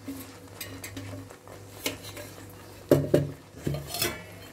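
Metal kitchen utensils clinking and knocking a few times, the loudest knocks about three seconds in, over a low steady hum.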